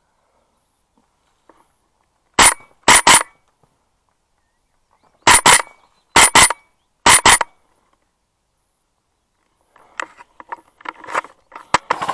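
Airsoft rifle firing sharp single shots, heard close up: about five short shots or quick doubles between about two and seven and a half seconds in. Near the end come lighter clicks and rattles of gear being handled.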